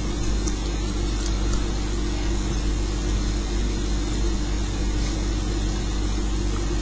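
A steady low hum with a few faint ticks.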